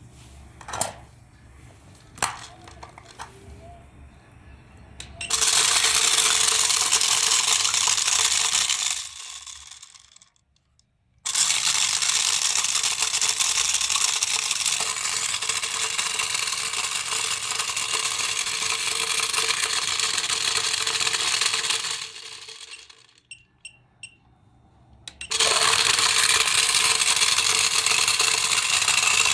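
A small electric toy running on high voltage: a loud, steady whirring buzz that switches on about five seconds in, dies away, starts again sharply, stops, and comes back near the end, with a few light clicks in the quiet gaps.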